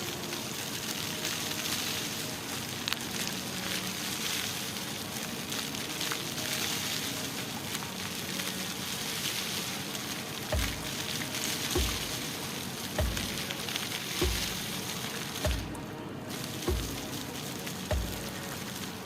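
Steady hiss of fountain jets spraying and splashing on wet paving in the rain. From about halfway a low thump repeats about once a second.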